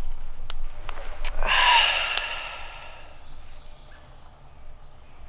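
A man takes one long, loud breath about a second and a half in, fading away over a second or so, between a few light clicks and rustles of movement.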